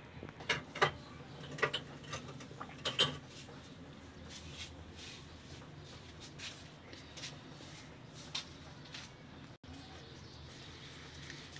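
Toast and a knife handled on a ceramic plate: a few sharp clicks and knocks in the first three seconds, then faint scattered ticks over a low steady hum.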